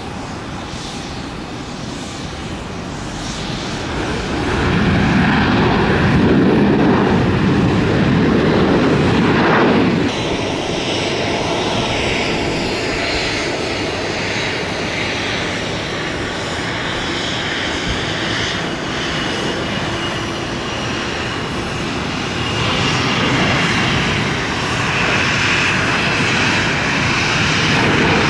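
Airliner jet engines on a landing rollout, building to a loud rumble about four seconds in, which cuts off suddenly at about ten seconds. Then a Gulfstream IV business jet's turbofans run up for takeoff: steady jet noise with high whining tones, growing louder near the end as it rolls down the runway.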